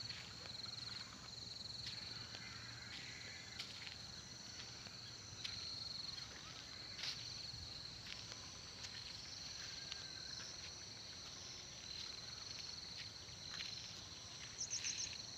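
Insects chirping in a steady, high-pitched chorus, with a brief faster trill near the end.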